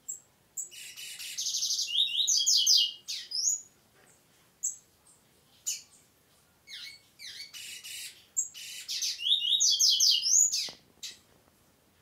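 Male double-collared seedeater (coleiro) singing: two song phrases a few seconds apart, each a fast buzzy trill running into a string of quick, high, clear notes, with a couple of single chirps between them.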